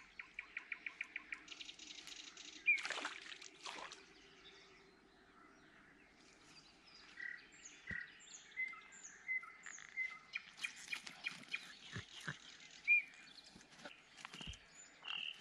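Songbirds singing and chirping in riverside trees, including a rapid trill near the start and high, repeated down-slurred calls. A few short splashy strokes and low knocks come from a pike being lifted from the water at the bank.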